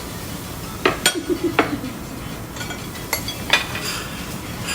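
Tableware clinking at a dining table: a few sharp knocks of utensils against dishes, a quick cluster about a second in and two more a couple of seconds later, over steady restaurant background noise.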